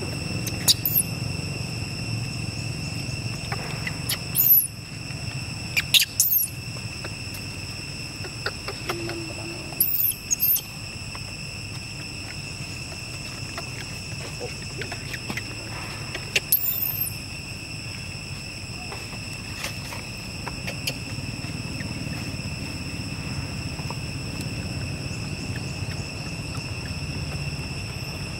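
Brief, very high squeaks from young long-tailed macaques, each falling in pitch, coming singly and in pairs about half a dozen times over a steady high-pitched whine.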